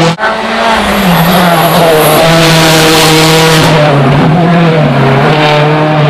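Rally car engine running hard at high revs, its note holding steady and stepping down in pitch a few times.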